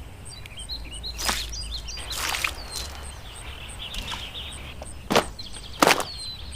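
Four sharp cracks or swishes at uneven intervals, the last two the loudest, like chopping or snapping plant material, with small birds chirping between them and a faint high tick repeating about three times a second.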